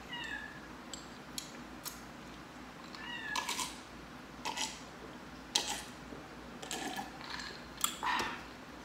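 A person drinking iced cola from a glass: gulps and swallows with a few short high squeaky sounds and light clicks, the loudest near the start and about 3 seconds in.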